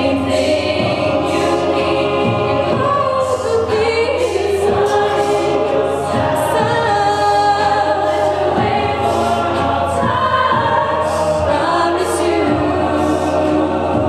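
Mixed-voice a cappella group singing live, a female soloist on a microphone leading over the group's backing vocals.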